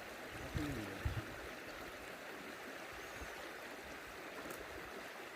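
Steady rush of flowing water, with a brief voice and a couple of low thumps about half a second to a second in.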